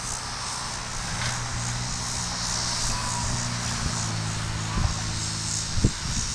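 Steady low engine drone, louder through the middle, over a constant high chirring of insects, with a few short low knocks near the end.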